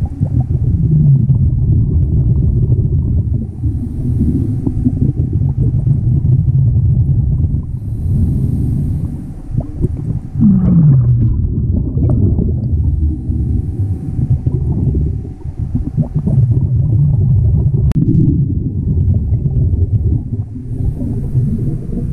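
Underwater sound of a diver breathing through a scuba regulator: exhaled bubbles rumble in surging bursts, with a faint hiss at each inhale every few seconds.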